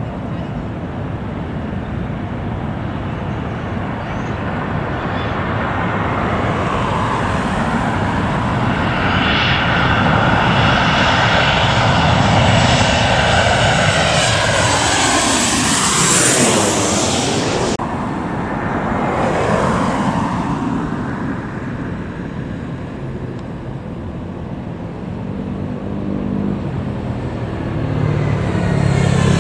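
Passenger jet passing by: the engine noise builds for several seconds and peaks about halfway, then its whine slides down in pitch and fades away. A low engine rumble rises near the end.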